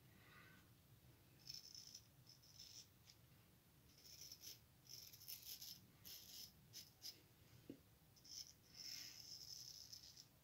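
Straight razor scraping lathered stubble on the neck and jaw: a faint series of short, scratchy strokes at irregular intervals, some in quick pairs, on a pass with the grain.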